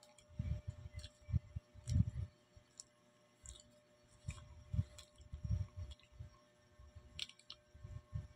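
A person chewing a mouthful of banana close to the microphone: irregular soft low thuds mixed with small wet mouth clicks.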